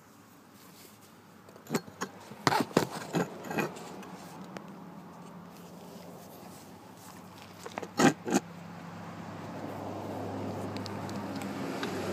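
Honda HRA216 mower with a bad transmission bearing: a few sharp metallic knocks and rattles, then a low steady hum that swells louder near the end.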